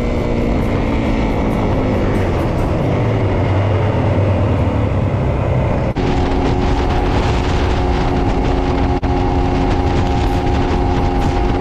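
Yamaha WR250F's single-cylinder four-stroke engine running at road speed under heavy wind rush. Its note sinks slowly at first, then changes abruptly about six seconds in to a steady pitch at highway cruising speed of about 75 mph.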